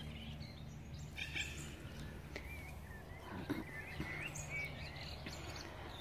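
Birds chirping in the background, scattered short calls that rise and fall, over a low steady background hum.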